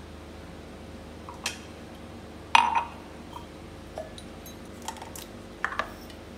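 A glass instant-coffee jar and an empty glass mug set down on a hard countertop: a few light knocks and clinks, the loudest a short ringing clink of glass on the counter about two and a half seconds in. Near the end a couple of quick clicks as the jar's screw lid is twisted off.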